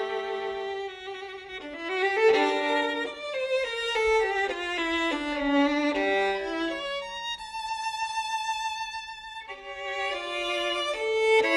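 Violin playing a slow melody, with a long note held with vibrato about two-thirds of the way through.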